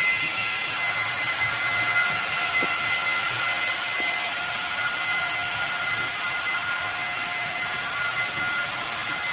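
Model electric locomotive, an SBB Cargo BR 193 Vectron, running on the layout's track hauling freight wagons. Its steady motor whine sits over an even hiss of wheel and running noise, with a few light clicks.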